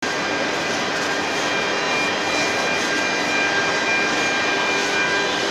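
Spindle of a Jinan Quick K45MT-3 CNC carving machine running steadily at speed: a constant high whine made of several tones over a steady rush of noise.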